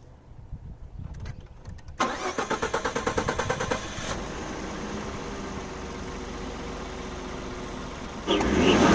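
Ford F-150 EcoBoost twin-turbo V6 with an aftermarket cold air intake being started: the starter cranks in rapid pulses for about two seconds, the engine catches and settles to a steady idle, and the engine sound jumps louder near the end.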